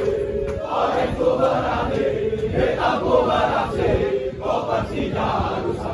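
A large crowd of male football supporters chanting together in unison, in short phrases that rise and fall about once a second.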